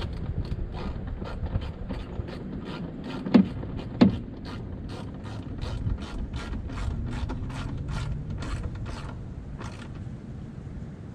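Hand ratchet wrench clicking in a steady run of about four clicks a second as a bolt is turned on a Volvo VNL semi's headlight housing, with two sharper metallic knocks about three and four seconds in.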